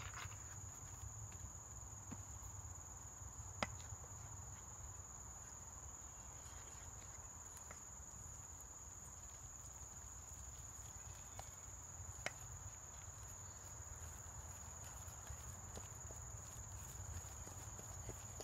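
A steady high-pitched drone of insects, with faint scraping and a few sharp clicks from a wooden spoon stirring wet bannock dough in a stainless steel bowl.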